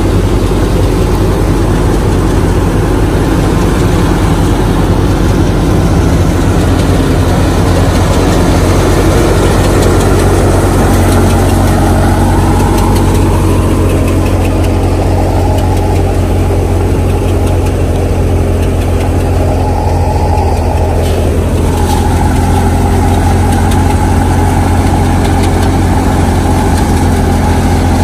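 Tractor-driven wheat thresher running steadily: a loud, even engine and machine drone with a deep hum throughout.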